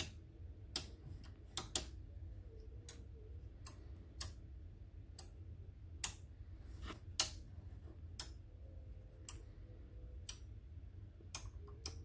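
Sharp, irregularly spaced clicks, about one to two a second, as the electromagnets arranged around a black-and-white CRT switch on and off to bend its picture, over a steady low hum.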